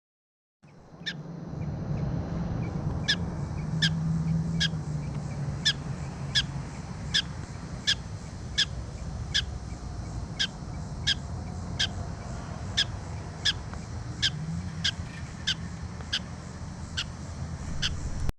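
A bird repeating a short, sharp, high call at an even pace, about one every 0.7 seconds, over a steady low rumble of wind on the microphone.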